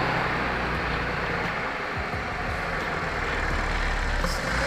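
Audi S4's supercharged 3.0-litre V6 idling steadily through a freshly fitted open cone-filter cold-air intake.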